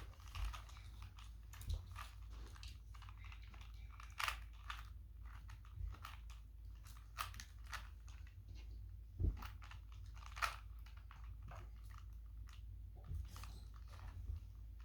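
Plastic Rubik's Cube layers being turned by hand: a run of irregular, faint clicks and clacks, with a few louder snaps.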